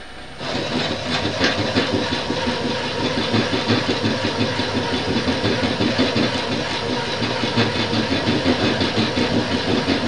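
1975 Solberga drill press boring an 18 mm hole in 4140 steel with a resharpened twist drill: the cut bites in about half a second in and carries on as a loud, rough, chattering grind with a fast uneven pulse. The chatter is, in the machinist's view, a sign the spindle speed may still be too high; chips are coming off both cutting edges, a sign the regrind is cutting on both lips.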